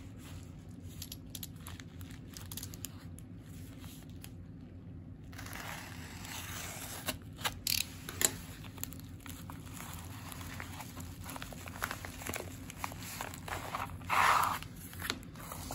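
A padded bubble mailer being handled and opened: paper and plastic crinkling and rustling, with a few sharp crackles about halfway and a brief louder rustle near the end as the contents are slid out.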